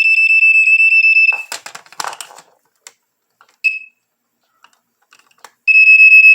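Black & Decker smoke detector's alarm horn sounding on its test button: a loud, shrill, rapidly pulsing tone cuts off about a second in. After some clicks and a brief chirp, it sounds again near the end. The test button needs cleaning, so the alarm cuts in and out.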